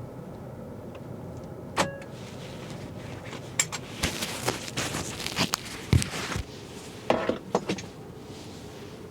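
Clicks and rustling from handling things inside a car's cabin: a single click, then a few seconds of rustling with sharp clicks, then another short run of clicks, over a low steady hum.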